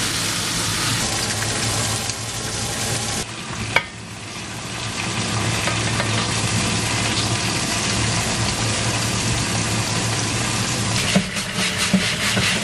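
Sliced sausage sizzling in a frying pan, with a brief dip and a sharp click about four seconds in. Near the end, clattering of dishes and utensils under a running tap.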